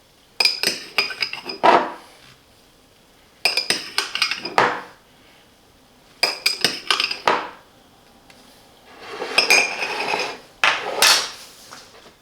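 A metal spoon clinking against a cup in five short bursts of rapid, ringing taps, each lasting a second or so, with pauses between them.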